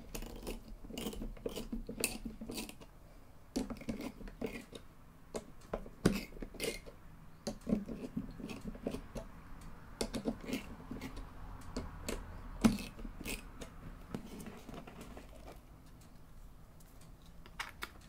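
Torx screwdriver backing out the spring-loaded screws of an ATI Radeon 4850 video card's metal heatsink. It gives irregular small metallic clicks and ticks as the springs under the screw heads let go. Two sharper clicks stand out, about six seconds in and near twelve and a half seconds.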